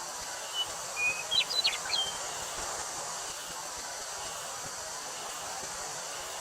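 Steady hiss of wind through a wheat field with a high insect drone, typical of cicadas. Between about half a second and two seconds in, a bird gives a brief run of short chirps and quick sweeping notes.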